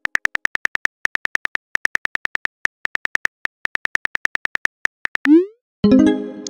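Texting-app sound effects: rapid keyboard-tap clicks, each a short bright tick, at about eight a second as a message is typed. About five seconds in, a quick rising swoop as the message is sent, followed by a ringing chime that fades out.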